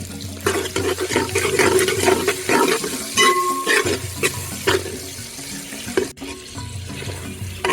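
Onions frying in hot oil, sizzling with dense crackling that is loudest in the first half.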